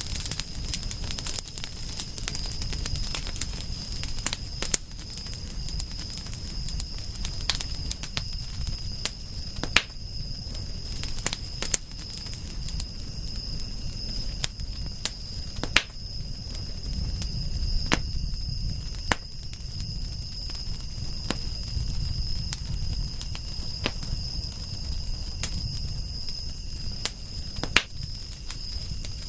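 Campfire burning: wood crackling with sharp pops at irregular intervals over a low rumble, with a steady high-pitched tone in the background.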